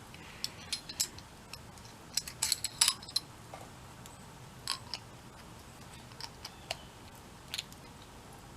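Small metal tool pieces clicking and clinking as they are handled: the parts and bits of a vintage screwdriver set being picked up and put together. A quick cluster of clicks comes about two to three seconds in, then single clicks now and then.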